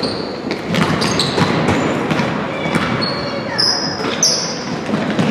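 Basketball game play on a hardwood gym floor: the ball bouncing, sneakers squeaking and players' feet thudding, with voices in the gym.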